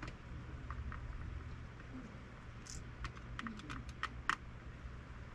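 Light, scattered clicks and ticks of small metal parts and a hand tool on a Shimano Stella spinning reel as it is handled and reassembled, the sharpest click about four seconds in, over a low steady hum.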